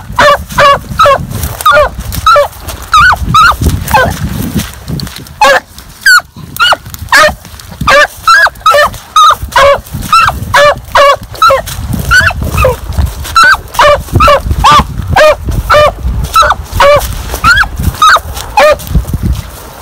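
A young rabbit hound giving tongue as it runs a rabbit's track: a steady string of short, loud barks, about two a second.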